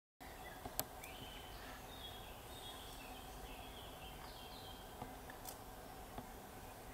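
Faint outdoor wetland ambience with distant small birds singing short, chirpy phrases. A sharp click sounds about a second in and another about five and a half seconds in.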